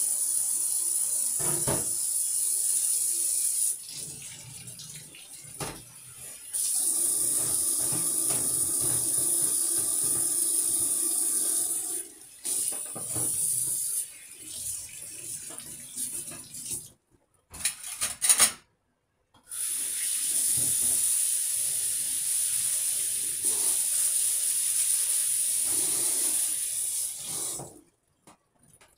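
Kitchen tap running into a stainless steel sink as dishes and a cutting board are rinsed. The flow is shut off and turned on again a few times, and there are a few short knocks of items handled in the sink.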